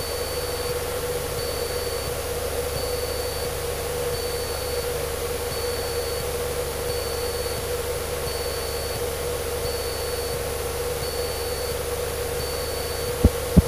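Cessna 152's engine and propeller droning steadily in cruise flight, heard inside the cabin. A faint high beep repeats about every second and a half, and two short clicks come near the end.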